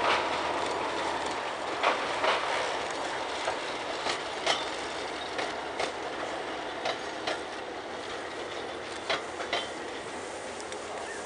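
Narrow-gauge diesel train rolling past, its wheels clacking irregularly over rail joints above a steady rolling rumble, slowly fading as it moves away.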